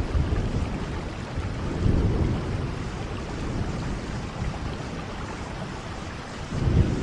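Steady rainfall with low rumbles of thunder, swelling about two seconds in and again near the end.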